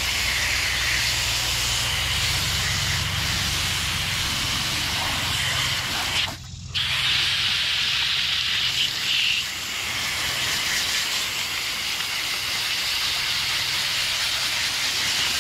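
Water from a garden hose pistol-grip nozzle spraying onto an air conditioner's condenser coil fins as the coil is rinsed after cleaning: a steady hissing spray. It cuts off briefly about six seconds in, then resumes.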